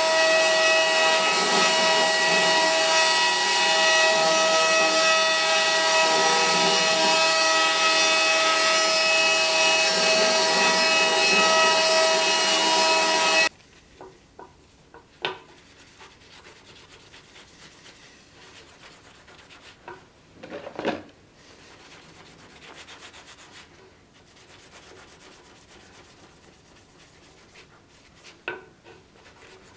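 A belt grinder runs steadily with a whine and hiss for about the first half, then stops abruptly. After that, much quieter rubbing follows as a metal sword pommel is hand-sanded with an abrasive pad on a wooden bench, with a few sharp knocks.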